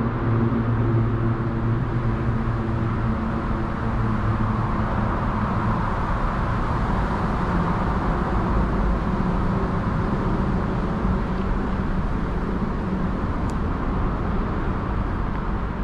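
Steady traffic noise from city roads, with a vehicle's low engine hum that fades out about three or four seconds in.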